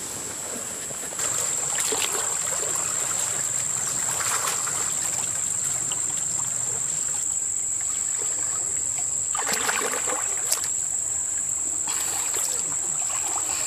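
Muddy creek water sloshing and splashing as a person in a ghillie suit crawls through it, in several louder surges. A steady high-pitched buzz runs under it from about a second in.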